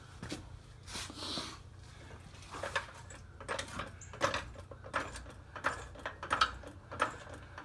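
Coil spring and spring installation tool on a Mustang's front lower control arm being worked toward the spring perch, giving about a dozen light, irregular metallic clicks and knocks.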